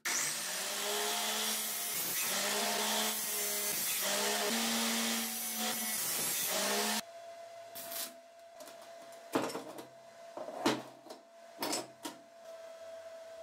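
A power tool working on metal for about seven seconds, then stopping abruptly; after it, several separate knocks and clinks of metal parts being handled.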